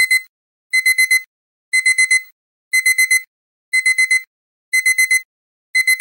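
Digital alarm-clock beeping: quick groups of four high beeps, one group each second, repeating steadily. It is the end-of-countdown alarm, signalling that the timer has run out.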